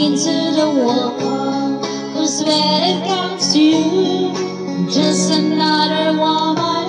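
A woman singing into a corded handheld microphone over backing music.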